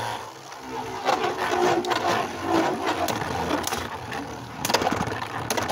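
Two Beyblade tops spinning in a plastic stadium, a steady whirring scrape of their tips on the stadium floor, with several sharp clicks as they clash, most of them in the second half.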